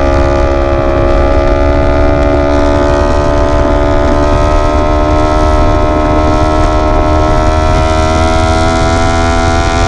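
Yamaha R1's inline-four engine pulling steadily under load, its pitch rising slowly and evenly as the revs climb, over a low rumble.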